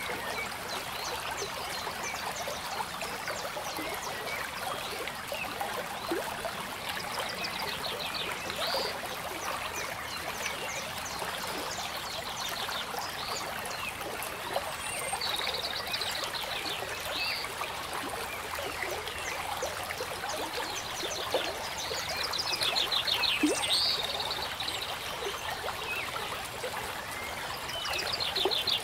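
Steady trickling of running water, like a small stream, with a short pulsed chirping trill coming in about four times.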